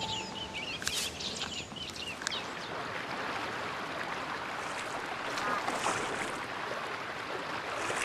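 River water flowing and lapping, with light splashes as a merganser dives and surfaces. A few short, high chirps come in the first two seconds.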